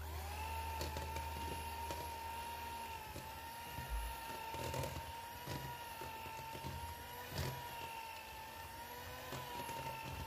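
Electric hand mixer running at a steady speed, its motor giving a constant whine. Its metal beaters make scattered knocks and scrapes against a stainless steel bowl while beating white shortening and powdered sugar into buttercream.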